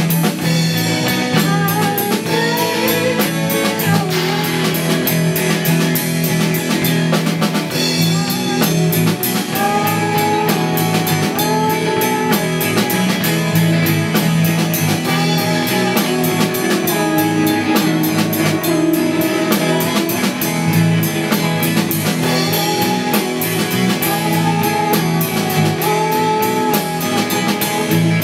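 Rock band playing live: two electric guitars, electric bass and a Pearl drum kit, with a steady beat.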